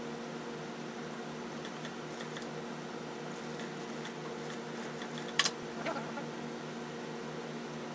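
Steady low machine hum at an industrial sewing machine, with quiet fabric handling. About five and a half seconds in there is one sharp click.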